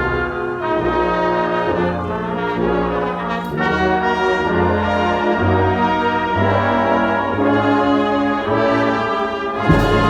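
Background music: sustained pitched notes moving through a melody over a low bass line, with a new phrase coming in on a sudden hit near the end.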